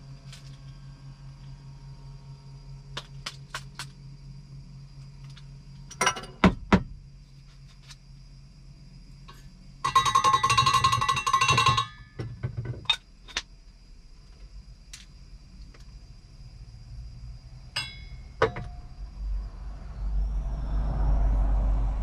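Small objects handled in a truck cab over a steady low hum: scattered clicks and clinks, a loud pair about six seconds in, then a loud harsh buzz lasting about two seconds halfway through. A low rumble builds near the end.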